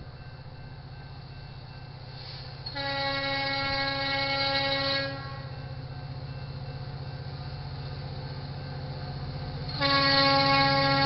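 Air horn of an approaching EMD SD70MAC locomotive, the deep horn that railfans call a 'tugboat horn', blowing for a grade crossing. The horn sounds faintly at first. A loud long blast comes about three seconds in and lasts about two seconds, the horn drops back to a fainter sound, and another loud long blast starts near the end.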